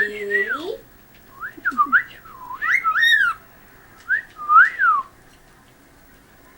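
Cockatiel singing: a string of whistled notes that sweep up and down, stopping about five seconds in.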